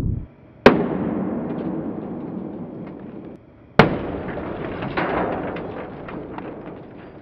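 Two sudden sharp bangs about three seconds apart, each trailing off into a fading rumble with crackles. The second is a CRT television screen shattering under a gas torch flame.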